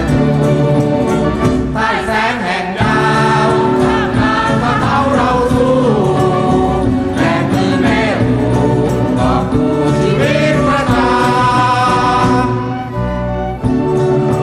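Music with voices singing over steady held chords; it thins out briefly about thirteen seconds in.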